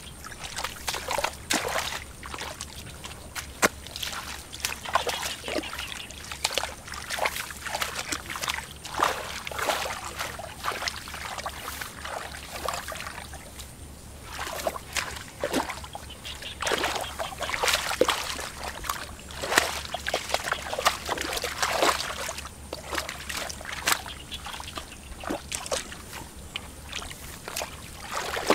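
Hands splashing and sloshing in shallow muddy water while groping for fish: a steady run of irregular splashes and slaps, some short and sharp.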